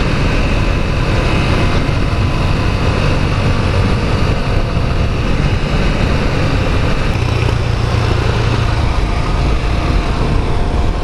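Suzuki Gixxer SF's 155 cc single-cylinder engine running steadily at cruising speed under heavy wind rush on the rider's microphone.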